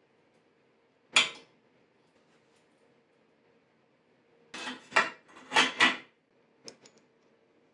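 Metal headset parts of a steel bicycle frame clinking. One sharp clink comes about a second in, then a quick cluster of clinks and rattles past the middle as the fork, its headset bearing on the crown, is fitted up into the head tube, and two light ticks follow.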